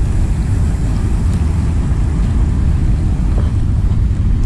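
Wind buffeting the camera microphone: a steady, loud low rumble.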